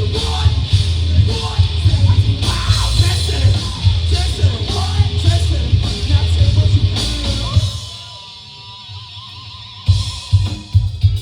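Live rock band playing loudly, with drums, guitar and shouted vocals, until about three-quarters of the way through, when the band stops and a single wavering guitar note rings on. Near the end a few sharp drum hits come in.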